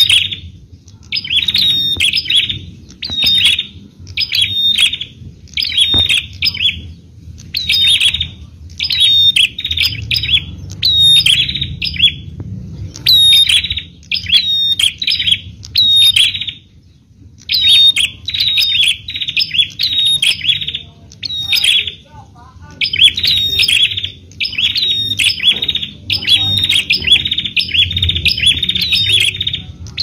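Bar-winged prinia (prenjak) calling: quick bursts of sharp, high chirping notes repeated phrase after phrase with short gaps, over a steady low background rumble.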